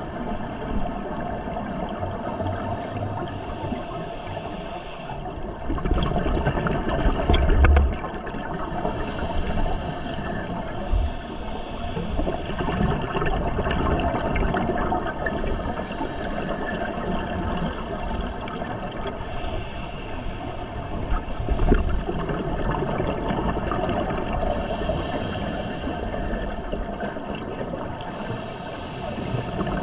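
Underwater sound of a scuba diver breathing through a regulator: bursts of exhaled bubbles rush up about every four to five seconds over a steady wash of water noise, with a couple of low rumbles.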